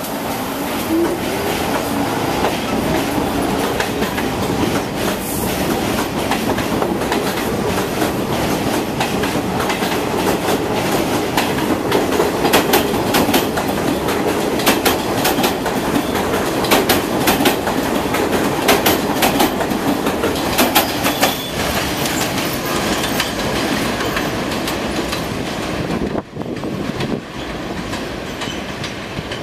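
R46 subway train pulling out of an elevated station, with a rising whine as it starts off. Its wheels then clatter over the rail joints in a quick rhythm as the cars pass, and the sound drops off near the end as the train draws away.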